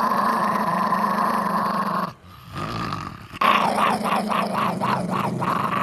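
Small dog giving a warning growl, guarding a sweater it lies on. The steady growl breaks off for about a second, then comes back in quick pulses, about four a second, before turning steady again.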